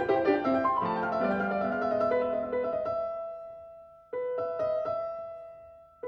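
Background piano music: a gentle melody that fades away, then cuts in abruptly with a fresh held chord about four seconds in.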